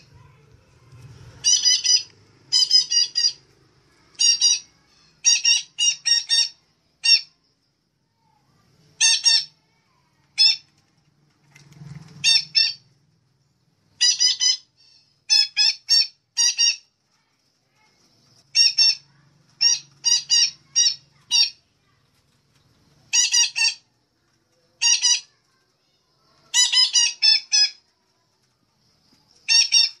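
Bird-lure recording of betet kelapa parrot calls: short, harsh squawks in quick clusters of one to four notes, repeated every second or two.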